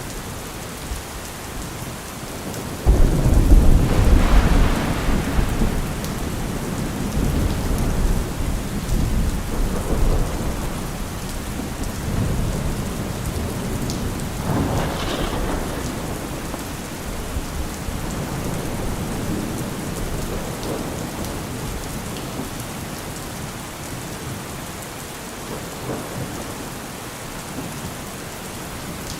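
Heavy rain falling steadily. About three seconds in, a loud low rumble starts abruptly and fades over a few seconds, and softer rumbling swells come and go later.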